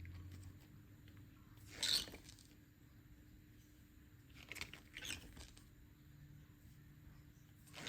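Pages of a photo book being turned by hand: a few short papery swishes, the loudest about two seconds in, two more around five seconds in and another at the very end, over a faint low hum.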